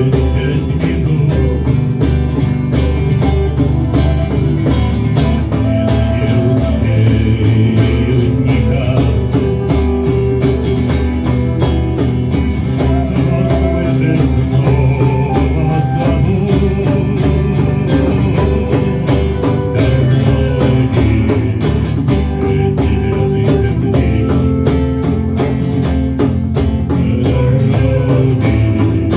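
Live band music: guitars playing over a steady beat.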